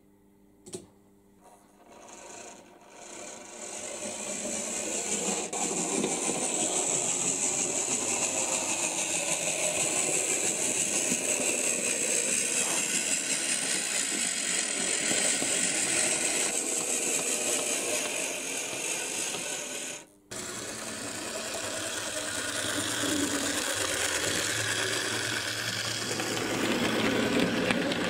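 Model railway trains running on the track: a steady whir of a small electric motor with rattling wheels. It starts after about three quiet seconds and one click, and grows louder as a model Class 03 diesel shunter comes closer. It breaks off briefly about two-thirds of the way through, then carries on as a train of coaches and vans passes.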